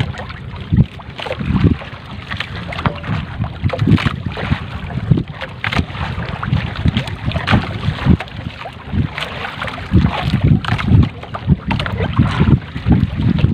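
Water splashing and slapping against a small boat's side while a wet trammel net is pulled aboard by hand, with irregular low thumps and wind buffeting the microphone.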